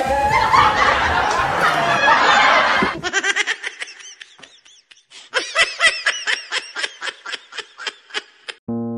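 Hearty laughing: a dense stretch of laughter for about three seconds, then a run of separate "ha-ha" laugh pulses, about three a second.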